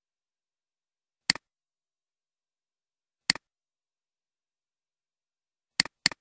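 Computer mouse button clicking in near silence: a single click about a second in, another about two seconds later, then a quick double-click near the end. Each click is a sharp press-and-release pair.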